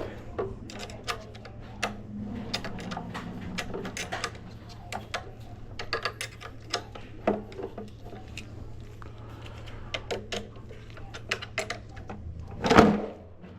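Irregular small metallic clicks and taps of a hand tool working the battery terminal hardware of a power wheelchair as the cable connections are tightened, over a steady low hum, with one louder, longer noise near the end.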